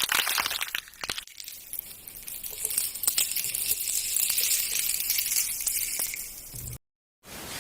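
Face being washed with face wash: a wet, crackling hiss with small clicks, which cuts off suddenly near the end.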